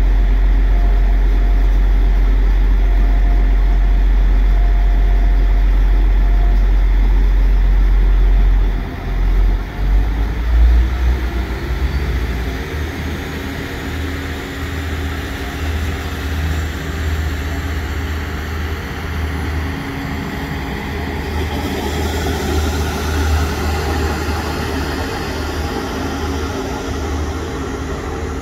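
Class 175 Coradia diesel multiple unit's underfloor Cummins engines idling with a steady deep hum, then opening up about nine seconds in as the train pulls away, running on at a higher, pulsing note. A hiss joins in about two-thirds of the way through.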